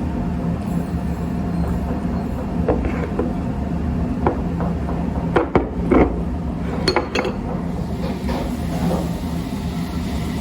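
Dishes and tableware clinking a few times, the loudest knocks in the middle, over a steady low background hum.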